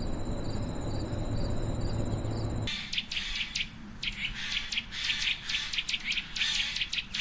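A steady low rumbling noise with a faint, steady high trill, then, from almost three seconds in, insects chirping in rapid, repeated high bursts.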